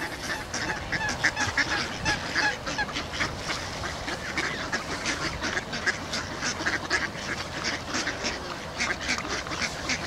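Ducks calling: a busy run of short, rapid calls, several a second, with no pause.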